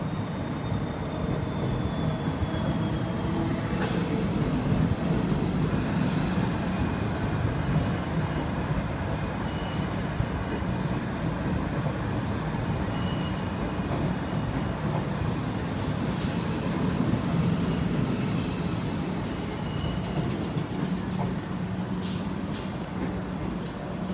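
Southern Class 377 electric multiple unit moving slowly along the platform: a steady low electric hum with the rumble of its wheels on the track, and a few sharp clicks along the way.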